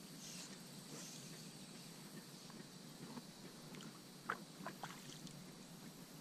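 Faint water lapping and rippling against an inflatable float tube on a calm pond, with a few short, sharp chirps about four to five seconds in.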